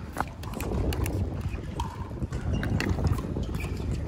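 Wind buffeting the microphone with a steady low rumble. Over it come sharp pops of pickleball paddles striking the plastic ball, several times, with some hits fainter than others.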